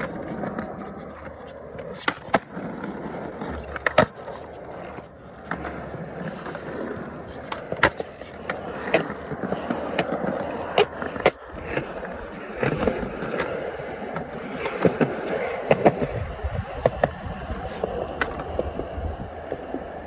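Skateboard rolling on concrete, a steady rumble from the wheels broken by many sharp clacks and knocks of the board.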